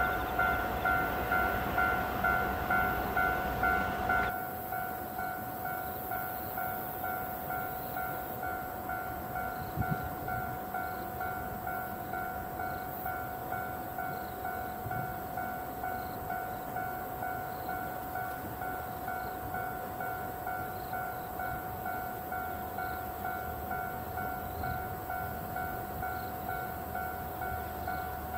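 Railway level-crossing warning bell ringing in a steady, even rhythm, a little under two strokes a second, as the freight train approaches. For the first four seconds the rumble of the diesel-hauled train pulling into the platform sits under it; after that the bell goes on alone, quieter.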